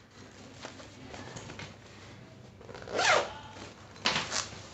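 A cloth handbag's zipper being pulled, in two quick strokes: one about three seconds in and another about a second later, over soft rustling of the fabric bag being handled.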